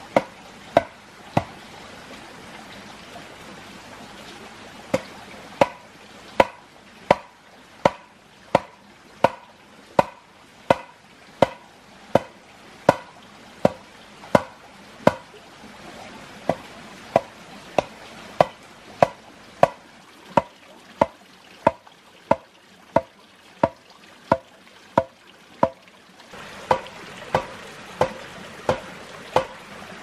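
Repeated blows on bamboo while building a bamboo fence, about three every two seconds, each a sharp knock with a short hollow ring. Pauses come briefly early on and again about halfway.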